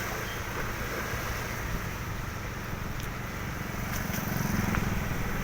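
Road traffic: motor vehicle engines running close by, with one growing louder about four seconds in.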